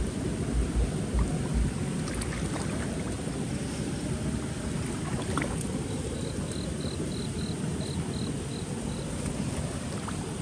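Steady rushing noise of wind and rain, with low wind buffets on the microphone in the first couple of seconds. A run of about nine short, high pips comes between six and nine seconds in.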